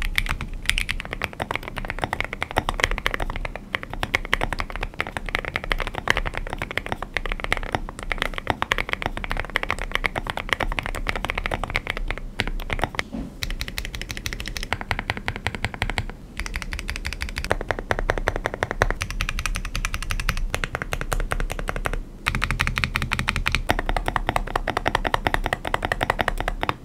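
Fast typing on a Monsgeek M1W aluminium mechanical keyboard fitted with factory-lubed Wuque Studio Morandi linear switches: a dense stream of rapid keystrokes. For most of the stretch it is the sharper, clacky build; in the last few seconds it changes to a deeper, thockier sound with more bass.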